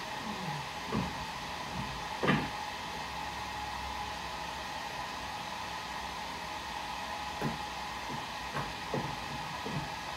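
Scattered light knocks and bumps of a person shifting about on a wooden bed platform, the loudest a little over two seconds in, over a steady fan-like whirring hiss.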